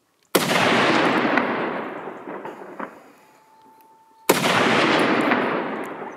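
Two rifle shots about four seconds apart. Each is a sharp crack followed by a long rolling echo that fades over two to three seconds.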